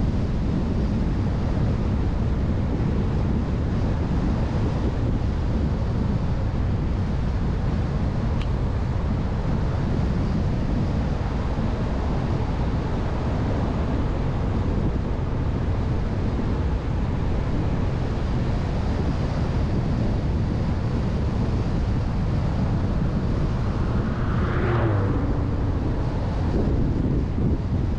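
Steady wind rush on a car-mounted camera's microphone over road and engine noise while driving. Near the end there is a brief whoosh that rises and then falls.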